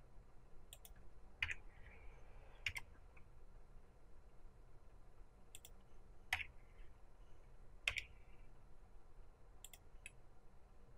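Faint clicks of a computer keyboard and mouse, about eight sharp single clicks spread out with pauses between them, over a low room hum.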